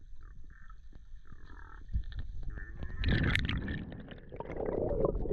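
Underwater sound of a freediver: faint clicks and low rumble near the bottom, then from about three seconds in a loud rushing gurgle of bubbles and moving water as he ascends toward the surface.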